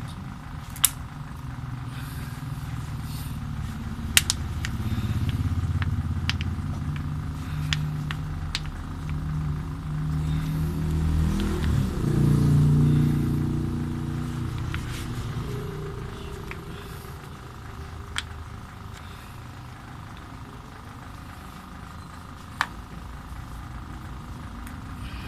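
Low vehicle rumble that swells to its loudest around the middle and then fades, with a few sharp clicks.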